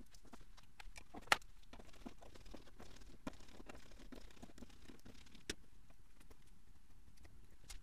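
Faint clicking and scraping of a small screwdriver working at the housing of a small fibre-optic component to open it, with a sharper click about a second in and another about five seconds in.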